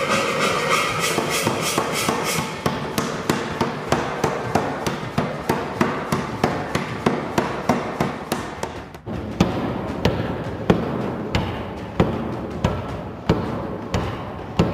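Béché 100 kg power hammer running, with quick, even strokes about three a second over a steady mechanical hiss. After a brief dip about nine seconds in come heavier blows about every two-thirds of a second as its ram forges a glowing 40 mm round bar of tool steel.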